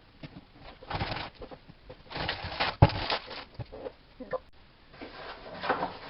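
Rustling and handling of egg cartons and food packaging in short bursts, with a sharp knock about three seconds in.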